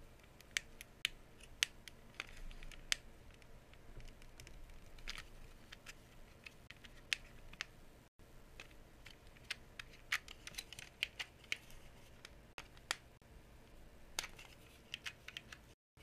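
Faint, irregular small plastic clicks and scrapes, bunched a little about two-thirds and near the end: a VEX IQ controller's thumbstick cap being pressed and worked onto the joystick's metal stem as it is refitted.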